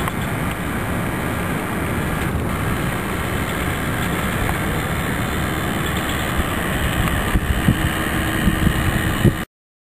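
Steady outdoor rumble and hiss with no clear single source, cutting off abruptly near the end.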